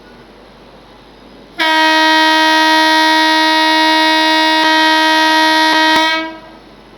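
Electric locomotive horn of a WAP-7 sounding one long, loud blast of about four and a half seconds, starting about a second and a half in: the starter honk signalling the train's departure.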